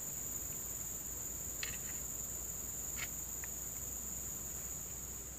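Steady, high-pitched buzz of an insect chorus, unbroken throughout, with a few faint short clicks around the middle.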